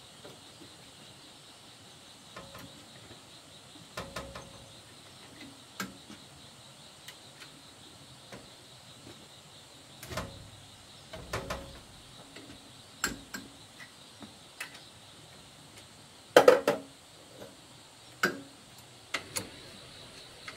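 Metal tools clicking, knocking and clanking on a small tractor engine as it is worked on with a wrench, in irregular single strikes, the loudest a quick cluster about sixteen seconds in. A faint steady high-pitched hum runs underneath.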